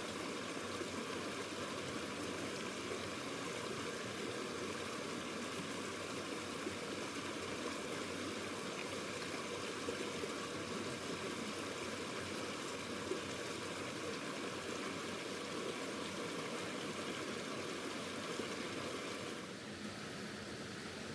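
A river rushing steadily as one even, unbroken sound, with a couple of faint ticks. Near the end it drops a little and changes character.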